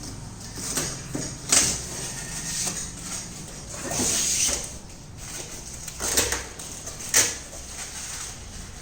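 A few short knocks and scrapes of things being handled and moved, over a low steady hum.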